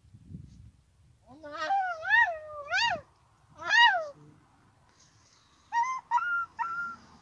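High-pitched squealing falsetto cries from a person's voice, each rising and falling in pitch. There are four longer ones in the first half, then three short yelps near the end.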